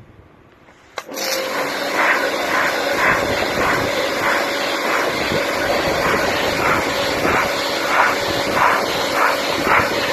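Pressure washer rinsing snow foam off a car's paintwork: a click about a second in, then the pump motor running steadily under the hiss of the water jet, the spray rising and falling in regular swells.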